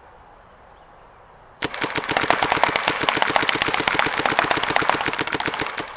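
Planet Eclipse Gmek mechanical paintball marker firing a rapid string of shots. The shots start about a second and a half in, run for about four seconds, and then stop.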